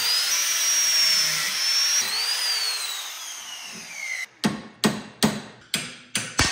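Angle grinder with a cut-off wheel cutting into a mounting tab on a steel motorcycle frame, its whine falling away as it winds down about four seconds in. Then six quick hammer blows, a little over two a second, knock off the part-cut tab, which has been cut only deep enough to break off.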